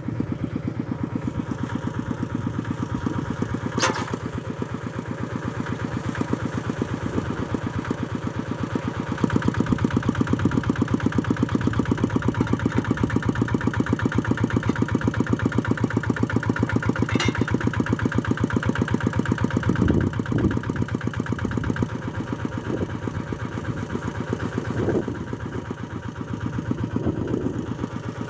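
Tractor engine running steadily with an even firing pulse; it gets louder about nine seconds in.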